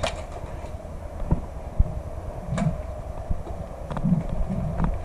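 Footsteps on gravel and the rustle of gear as the wearer walks, with a few scattered sharp clicks and knocks over a low rumble.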